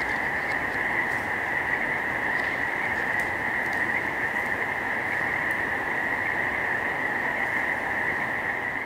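Frogs chorusing at night: a dense, continuous trilling drone, steady throughout, that fades away near the end.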